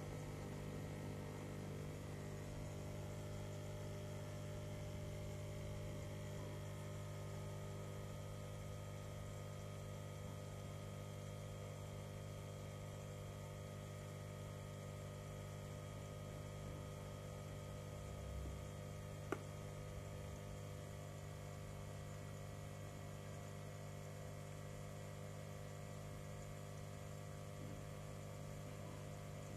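Steady hum of a homemade protein skimmer's water pump running on a saltwater aquarium, with a faint hiss of water and fine bubbles. A single small click sounds about nineteen seconds in.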